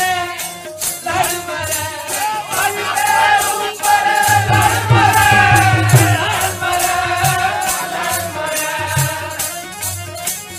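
Sikh kirtan: a voice sings a wavering devotional melody over accompaniment, with a jingling percussion beat at about three to four strokes a second and low drum-like bass notes.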